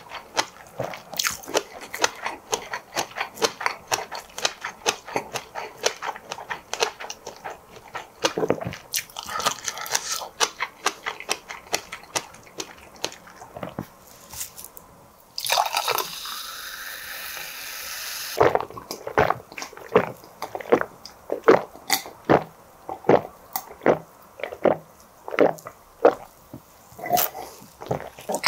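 Close-miked chewing of seafood, a fast run of wet clicks at about four a second. They stop for about three seconds past the halfway mark, when a steady hiss takes over, and then resume.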